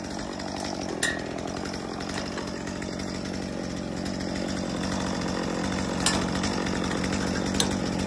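Chainsaw idling steadily beside a tree-felling jack, slowly growing a little louder, with three sharp clicks as the jack handle is worked.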